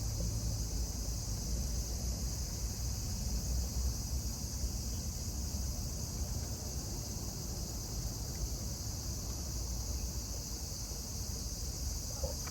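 Steady, unbroken high-pitched drone of insects, with a low rumble underneath.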